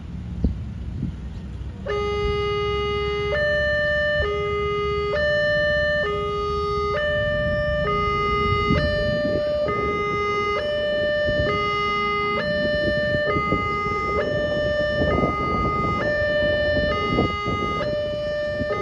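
Railway level-crossing warning alarm sounding from about two seconds in: an electronic two-tone signal switching between a lower and a higher note, each held just under a second, warning road users that the crossing is closing for a rail vehicle.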